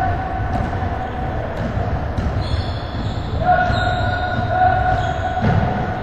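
A basketball bouncing a few times on a hardwood gym floor, heard in a large, echoing hall. A long, steady tone sounds over it twice, once at the start and again from just past halfway.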